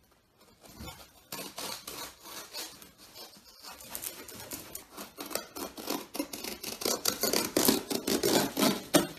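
A cardboard shipping box being torn open by hand: packing tape, cardboard flaps and plastic wrapping ripping and crackling in quick, irregular tears, getting louder over the last few seconds.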